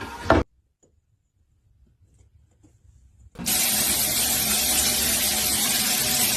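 Near silence for about three seconds, then a small motor starts abruptly and runs with a loud, steady whirring hiss.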